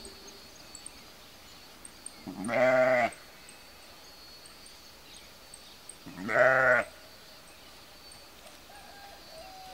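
Sheep bleating twice, two wavering calls each under a second long, about four seconds apart.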